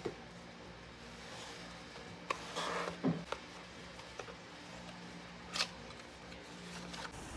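Small packaged items being handled and set down on a tabletop: a few light knocks and taps, the loudest about three seconds in, with a brief rustle of packaging just before it. A faint steady hum runs underneath.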